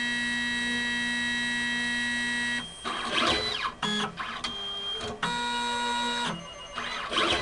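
Motors of an automatic pipetting robot whining as its arm and syringe move. A steady whine runs for about two and a half seconds, then a short sweep up and down, then a steady whine at a different pitch about five seconds in, with another sweep near the end.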